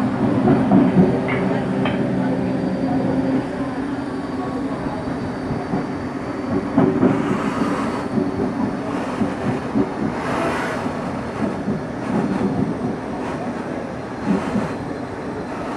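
CPTM Series 1700 electric commuter train running on the line, a continuous rumble of wheels on rail with irregular clicks and clacks from the track. A steady low hum from the train's equipment fades out about three and a half seconds in.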